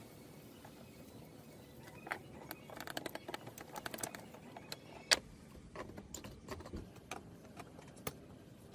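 Scattered light clicks, taps and scrapes of hands handling an old rusty steel foot pump and its rubber hose, with one sharper metallic click about five seconds in. Near the end a spanner clicks onto the pump's outlet fitting.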